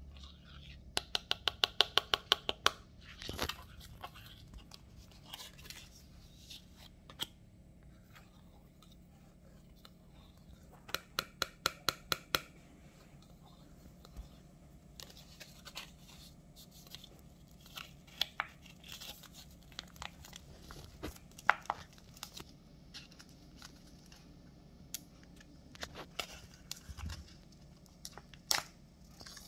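A plastic snack packet handled by hand: quick runs of clicks and crinkles as fingers tap and press it, then it is torn open near the end.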